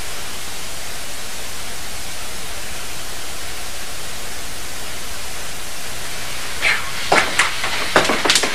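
Steady background hiss with no other sound for most of the stretch, then a few sharp clicks and knocks near the end.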